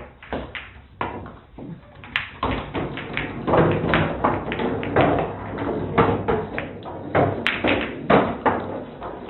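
An irregular run of taps and thuds, several a second, going on throughout.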